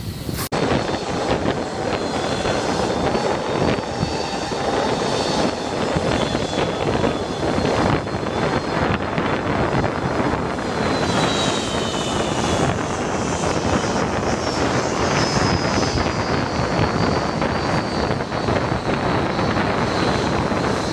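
Boeing 757 airliner's twin jet engines running as it taxis: a steady rush with a high whine over it that shifts slightly in pitch.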